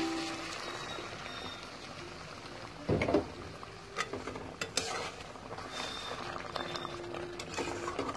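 Curry gravy bubbling and sizzling in a pan while a spatula stirs and scrapes through it, with scattered small clicks and one louder spatula stroke about three seconds in.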